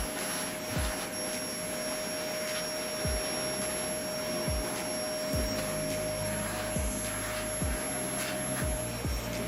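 Small electric cleaning motor, such as a vacuum or dust blower, running steadily with a constant whine, used to clean dust out of an old desktop PC. Short low sounds that fall in pitch come every second or so at irregular spacing.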